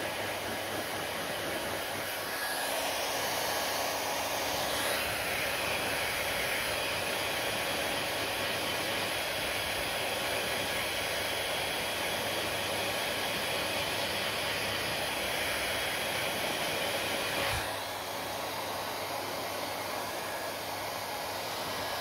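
Handheld hair dryer blowing steadily on long wet hair, its rush of air growing louder about three seconds in and dropping slightly after a brief low bump near the end.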